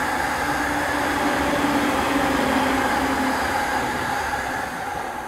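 Inside a Tokyo Metro 05 series train car on the move: steady running noise with a constant whine, and a lower hum that fades out about three seconds in.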